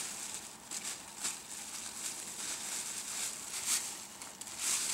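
Irregular rustling and crackling, with a sharper crackle every half second to second.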